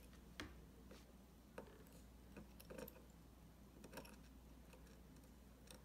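Faint, irregular light clicks and scrapes of a small screwdriver turning a tiny screw into a plastic battery case cover, about half a dozen ticks spread out over low room hum.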